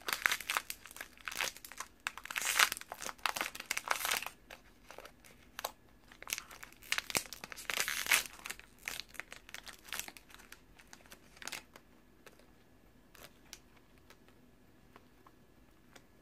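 A crinkly plastic blind bag being opened and crumpled by hand. Dense crackling in the first few seconds, more bursts of crinkling midway, then a few faint clicks toward the end.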